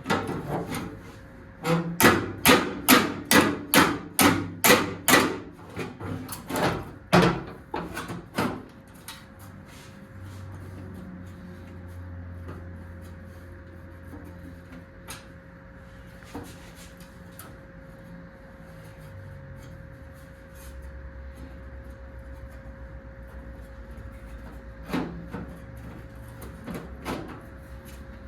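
A hammer strikes car-body sheet metal in a quick, even run of blows, about three a second, followed by a few scattered strikes. A faint low hum follows, with two more knocks near the end.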